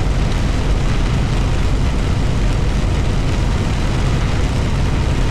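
Steady engine and road noise of a vehicle driving on a highway, heard from inside the cab: an even low rumble under a constant hiss.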